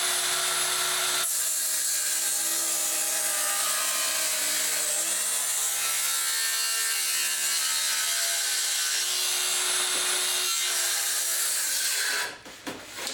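Circular saw running under load, cutting a compound 45- and 30-degree angle through wood in one pass. Its motor tone drops a little over a second in as the blade takes the cut, and it stops near the end.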